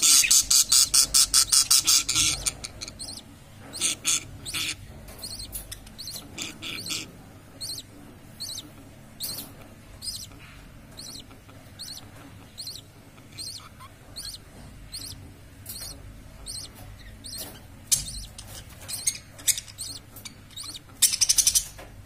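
Budgerigars chirping in a nest box with newly hatched chicks: short high chirps, about two a second, after a fast run of loud ticking that stops about two seconds in.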